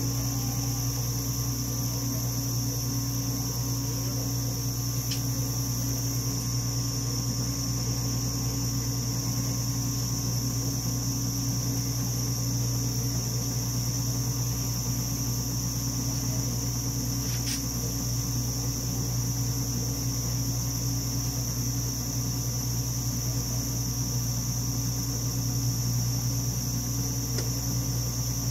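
Steady mechanical hum of a Dimension RxL clinical chemistry analyzer standing powered on, its fans and internal motors running, with a low drone and a thin high whine and a couple of faint ticks.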